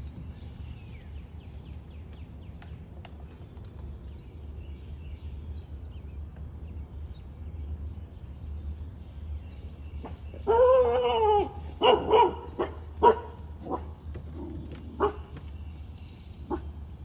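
A dog barks: one long, drawn-out bark about ten seconds in, then a string of short single barks over the next few seconds.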